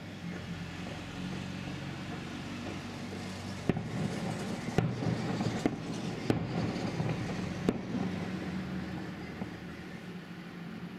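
Distant fireworks salute bursting in the sky: about five sharp bangs between roughly four and eight seconds in, over a steady low rumble.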